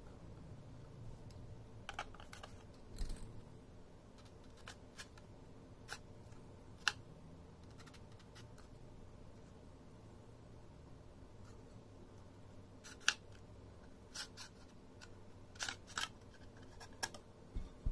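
Snap-fit plastic clips of an HP p2100s portable hard drive enclosure clicking and snapping as the case is prised apart by hand: scattered sharp clicks, some in quick pairs, with the loudest about midway.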